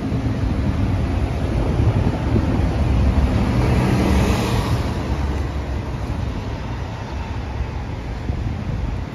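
New Flyer XD60 articulated diesel bus driving past in street traffic, its engine rumble building as it comes alongside. It is loudest with a rush of noise about four seconds in, then fades as it pulls away.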